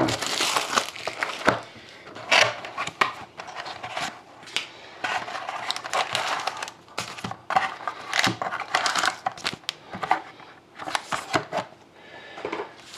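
Packaging of a box of trading cards crinkling and tearing in irregular rustles as the box is opened by hand.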